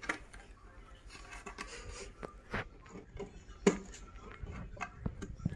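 A toddler's hands scratching and tapping on the wooden bottom of an empty drawer: light scraping with scattered soft knocks, the sharpest a little after three and a half seconds in.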